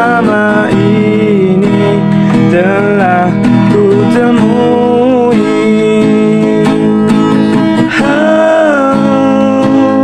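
Background music: a Malay song with acoustic guitar strumming and a voice singing long, gliding notes.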